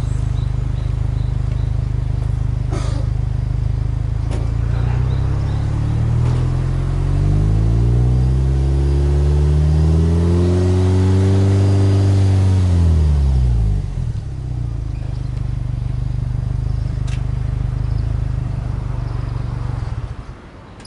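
Subaru Legacy Touring Wagon 2.0GT's turbocharged EJ20 flat-four, heard at its twin tailpipes: idling, then revved slowly with no load, rising steadily in pitch for several seconds, held briefly, and dropping back to idle. The engine sound cuts off near the end.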